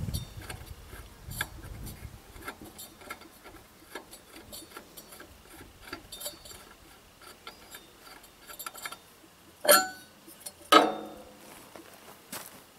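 Light metallic clicks and ticks as the air cleaner cover is unscrewed and lifted off a small garden tractor engine, with two louder clanks about ten and eleven seconds in.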